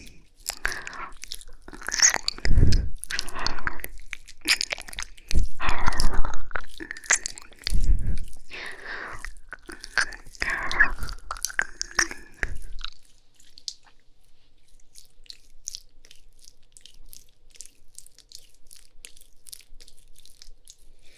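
Close-up ASMR ear licking and kissing: wet tongue and lip sounds right on the microphone, with a few deep thumps in the first half. After about 13 seconds it drops to faint, scattered wet clicks.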